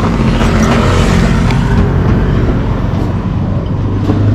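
Motor-vehicle engines running close by in street traffic: a steady low rumble under a loud, even noise.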